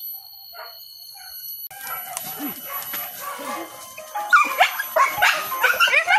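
A pack of hunting dogs barking and yelping in quick, overlapping bursts, getting loud from about four seconds in.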